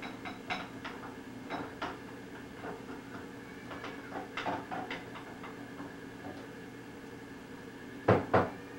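Scattered light clicks and knocks, with two louder knocks close together near the end, over a steady low hum.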